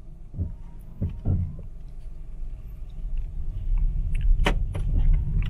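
Low rumble of an Opel Corsa heard from inside the cabin as it pulls away and rolls slowly down a wet driveway, growing louder, with several sharp knocks and clicks, the loudest about four and a half seconds in.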